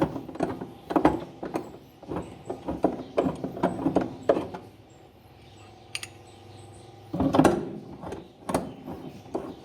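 Irregular clicks and knocks of screws and metal parts being handled and set into a washing machine's upper crossbar, with a faint steady hum for a couple of seconds in the middle.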